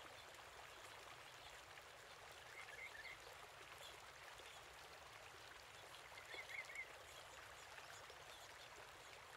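Near silence: a faint steady hiss, with two soft, brief chirps, one about two and a half seconds in and one about six and a half seconds in.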